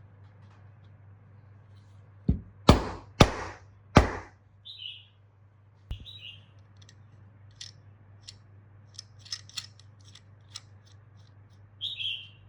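Four loud, sharp knocks in quick succession about two to four seconds in, each ringing briefly, then scattered light clicks and taps of metal tool and planer parts being handled.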